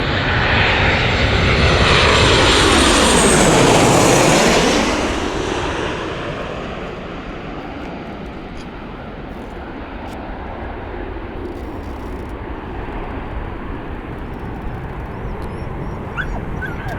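Airliner passing low overhead on its landing approach: a loud roar with a high whine that sweeps down as it goes over, strongest in the first five seconds, then fading to a steady distant rumble.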